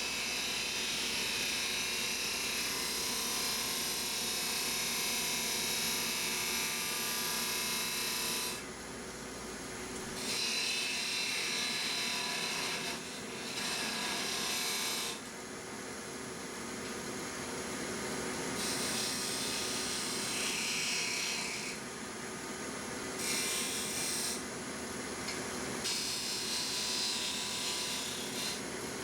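Wood lathe spinning a small walnut piece while a turning tool cuts it, a scraping hiss over the motor's steady hum. The cutting noise stops and starts several times as the tool is lifted and set back on the wood.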